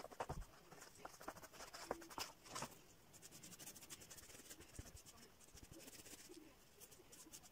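Faint strokes of a paintbrush on cardboard and light handling of the painted cardboard pieces, with soft scattered clicks and taps.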